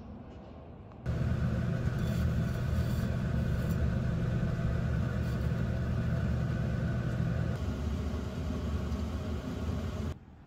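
Steady low drone of a running vehicle, cutting in suddenly about a second in and stopping suddenly near the end.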